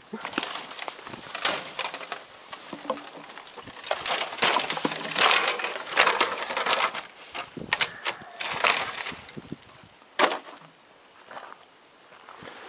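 Footsteps crunching and snapping through dry twigs, leaf litter and discarded paper and plastic, in irregular crackles that are busiest in the middle, with one sharp snap about ten seconds in before the sounds thin out.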